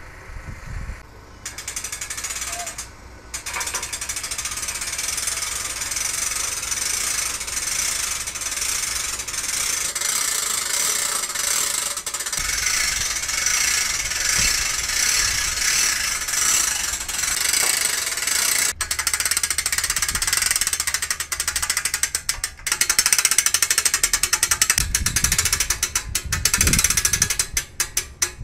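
Hand-cranked cable winch on a tilt-down CCTV pole being wound to raise the pole, its ratchet pawl clicking rapidly and continuously. The clicking grows louder in the last few seconds.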